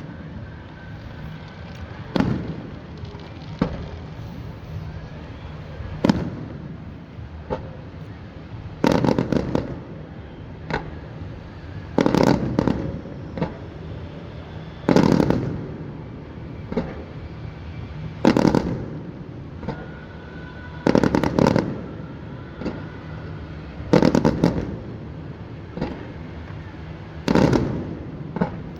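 Aerial firework shells bursting in a steady series of booms, about one every one and a half to three seconds, some coming in quick clusters of two or three bangs.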